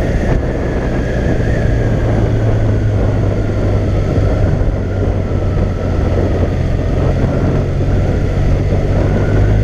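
BMW R 1200 R's boxer twin engine running steadily while the motorcycle is ridden, mixed with wind noise on the onboard microphone.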